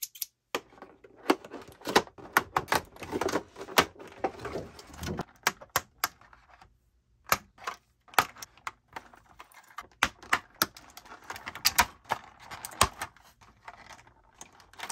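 Scissors snipping and a doll's plastic-windowed cardboard box being opened: irregular sharp clicks, snaps and crinkles of stiff plastic, with a brief silent gap about seven seconds in.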